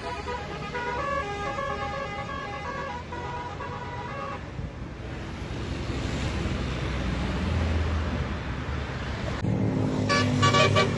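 A bus's basuri ('telolet') multi-tone musical horn plays a tune of short stepped notes for about four seconds. Then comes a low engine rumble with road noise. Near the end a loud chord of horn notes starts up again.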